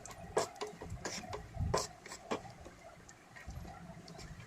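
Spatula knocking and scraping against a pan while stirring broken cashews roasting in ghee: a few light knocks in the first half, then quieter.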